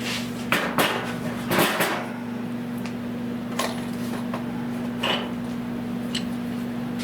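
Sharp metal-on-metal clanks on a steel car fender during dent repair, about six strikes spread irregularly, the loudest clustered in the first two seconds, over a steady electrical hum.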